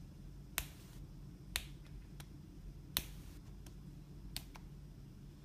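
About six short, sharp clicks of fingers and nails on the AGM A8 rugged phone's casing and edge as it is handled. They are spread irregularly, and the loudest comes about three seconds in.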